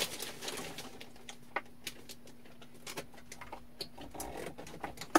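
Light, irregular clicks and taps of a power cord and plug being handled and plugged in, over a faint steady hum.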